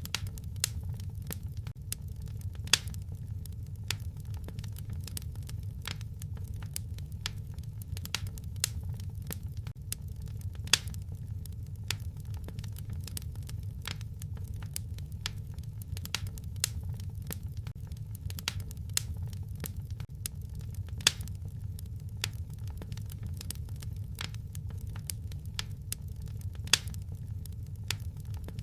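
Wood fire crackling in a fireplace: a steady low rumble under an irregular scatter of sharp pops and snaps, a few of them louder than the rest.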